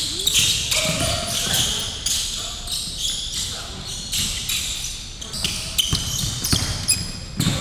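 Basketball being dribbled on a hardwood gym floor, with repeated bounces and sneakers squeaking as players cut and slide, and some voices in the background.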